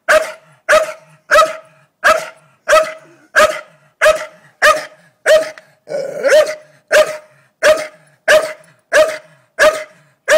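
Staffordshire bull terrier barking at a blue-tongue lizard it has found: one loud bark after another at a steady pace, about three barks every two seconds.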